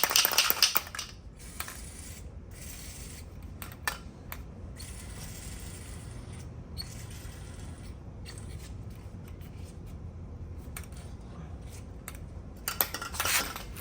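Aerosol chain cleaner sprayed onto a motorcycle chain in short hissing bursts, one at the start and another near the end, with faint clicks of handling between. The can is nearly empty.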